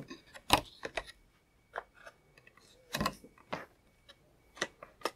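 Clear plastic packaging being pulled open and handled over a cardboard presentation box: about seven short, sharp plastic clicks and knocks at irregular intervals.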